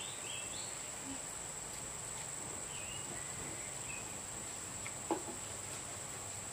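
Steady high-pitched insect trill, typical of crickets or cicadas. A few short chirps sound over it in the first second and again around three seconds in, with a faint click near the end.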